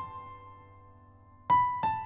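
Background piano music: a held note fades away, then two new notes are struck about a second and a half in.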